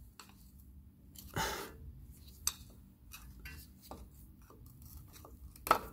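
Steel pry bar scraping and clicking against the rusted flange joint of a Subaru Forester's centre drive shaft as it is worked loose: irregular metallic clicks and scrapes, the loudest a sharp click near the end. The joint is held fast by rust.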